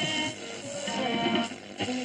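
Music from a shortwave broadcast playing through the loudspeaker of a 1956 Philips BCA435U valve radio, with an abrupt change in the sound near the end.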